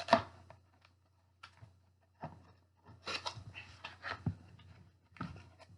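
Cardboard shipping box being opened by hand: scattered scrapes, rips and rustles of cardboard and packaging, the loudest one right at the start and a busier run of them a few seconds in.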